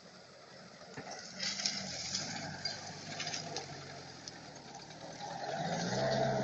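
UAZ-469's four-cylinder petrol engine running on a test after repair. It gets louder about a second in, with a rattling clatter. A low drawn-out pitched sound sets in near the end.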